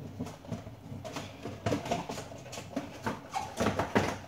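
Irregular clicks and knocks of hard-boiled eggs being handled and set into a plastic egg container, with the plastic container rattling.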